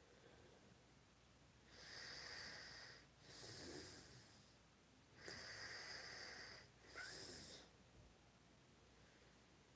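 A sleeping person snoring and breathing heavily: two rounds of noisy breaths, each an in-breath followed by an out-breath lasting about a second, faint against a quiet room.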